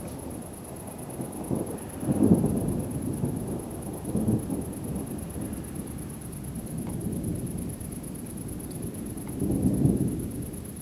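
Thunder rumbling, swelling to loud peaks about two seconds in, again around four seconds, and once more near the end.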